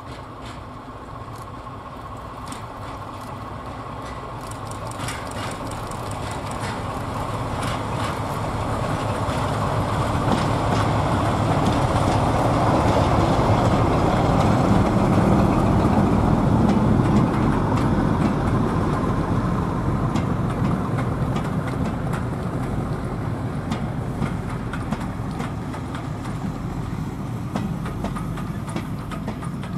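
Two diesel locomotives double-heading a train of coaches run past. The engine sound builds to its loudest about halfway through, then the coaches follow with wheels clattering over the rail joints.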